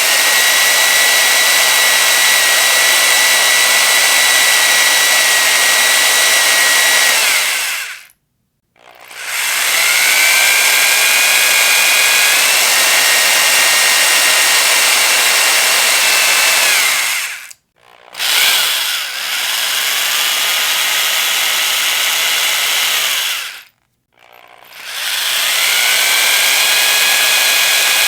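Electric power drill running at high speed in long bursts, its motor whine rising as the trigger is squeezed and dying away as it is released. There are three short pauses, a little past a quarter, near the middle and about four-fifths of the way through. The pitch steps up partway through the second burst, and the third burst runs at a lower pitch.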